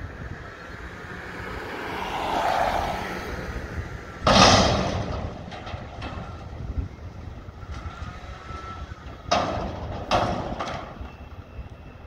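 Mack front-loader garbage truck with a McNeilus body emptying a dumpster: the diesel engine revs up to drive the hydraulic lift arms. About four seconds in there is one loud crash, and near the end two more bangs, as the container is tipped and shaken empty over the cab into the hopper.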